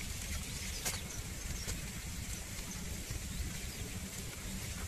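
Outdoor ambience: an unsteady low rumble with a faint hiss above it, and a couple of faint clicks about a second and nearly two seconds in.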